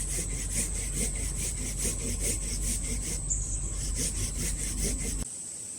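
Hand saw cutting through a tree trunk in quick back-and-forth strokes, about four a second, that stop abruptly about five seconds in.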